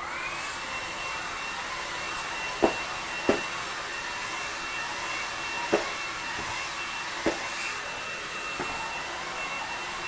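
Dreame V10 cordless stick vacuum switched on in turbo (maximum) mode: the motor spins up at once and settles into a steady high whine as it cleans artificial turf. A few short sharp knocks sound over it.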